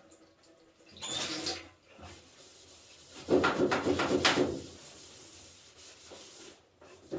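Rubbing and scrubbing at a washbasin: a short burst, then a longer, louder run of quick strokes about three seconds in.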